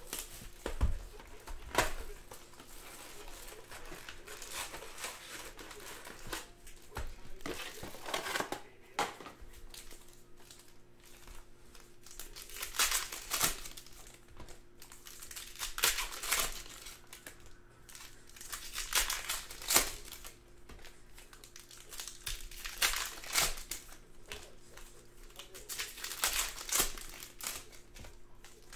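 Plastic wrap and foil wrappers of 2019-20 Panini Prizm basketball card packs crinkling and tearing in irregular bursts as the box is unwrapped and the packs are ripped open.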